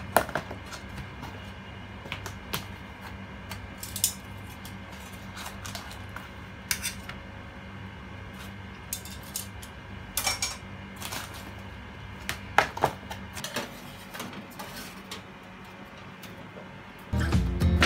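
Scattered clinks and scrapes of metal tongs against an aluminium baking tray, then the tray going onto a metal oven rack near the end. A steady low hum runs beneath and drops away a little after the middle.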